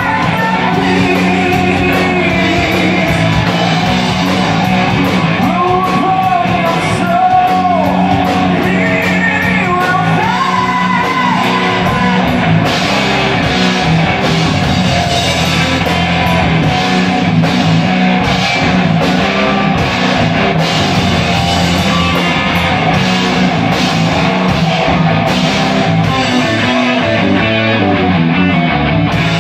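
Live hard rock band playing loud: distorted electric guitars, bass guitar and drum kit, with guitar lines bending in pitch around a third of the way in.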